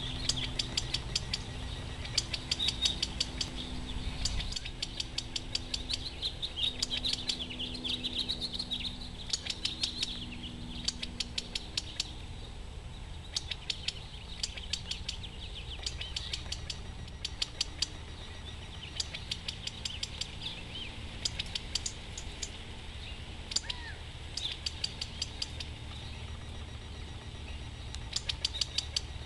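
Male California quails calling back and forth, short gliding calls, busiest in the first third. Bursts of rapid clicking come again and again throughout.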